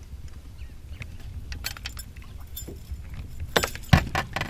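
A metal spoon lure and its hook clinking and jingling as they are worked free of a largemouth bass's mouth: a few light clicks, then a louder flurry of clinks near the end, over a steady low rumble.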